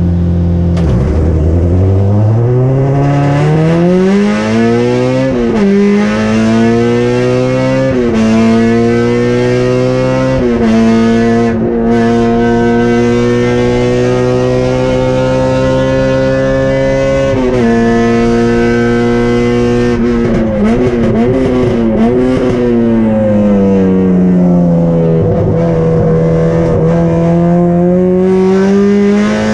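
Onboard sound of a race-prepared Honda Civic's K24 inline-four engine under hard acceleration. The revs climb and drop back at quick upshifts about 5, 8 and 10 s in, then hold high for several seconds. Around 20 s in the revs fall and jump during braking and downshifts, dip low through a corner, then climb again near the end.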